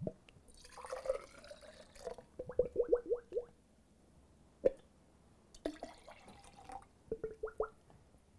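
Juice pouring from a ceramic fish-shaped gurgle pot into a glass, twice, each pour ending in a quick run of rising gurgles. A single sharp glug comes between the two pours.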